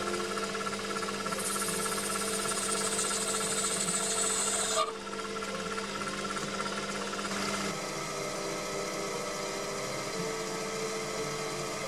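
Proxxon PD 250/e mini lathe running while the tool cuts the brass-lined bore of the workpiece: reaming, then knocking the corner off the inner edge. The sound changes abruptly about five seconds in.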